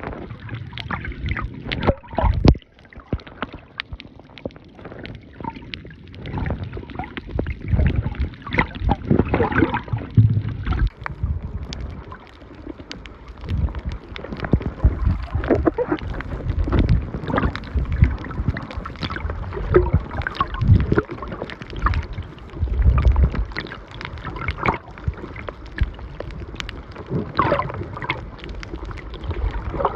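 Water sloshing and gurgling around a camera filming underwater, with irregular low thumps and short splashy clicks.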